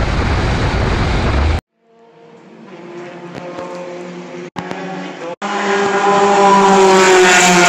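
Engine and wind noise inside a VITA-01 race car at speed, cut off suddenly about a second and a half in. Then race car engines heard across the circuit fade in and grow steadily louder, stepping up about five seconds in.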